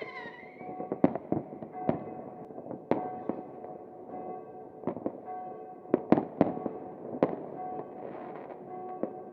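New Year fireworks: sharp bangs of aerial shells and firecrackers going off at irregular intervals, with several in quick succession about six seconds in. A falling whistle from a whistling firework trails off at the very start.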